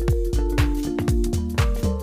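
Upbeat electronic background music with a steady drum beat, sustained synth notes and a bass line.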